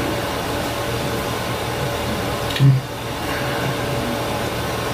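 Steady fan-like rushing noise with a faint steady hum tone running under it. A single short low sound stands out briefly about two and a half seconds in.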